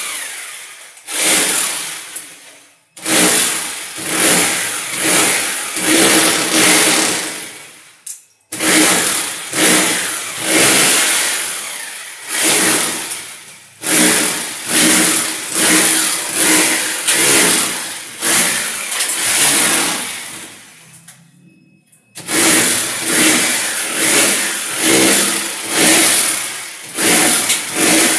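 Handheld electric rotary hammer with a chisel bit hammering cement plaster off a concrete wall. It runs in long bursts with four brief stops, its loudness swelling and dipping about once a second as the bit bites.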